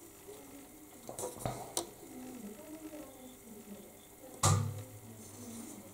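Plastic model-kit sprue handled in the fingers: light clicks and taps of the hard plastic frame and parts, with one louder short knock about four and a half seconds in.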